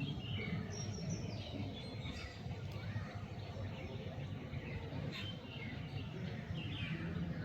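Birds chirping, short calls and falling notes, over a steady low rumble of background noise.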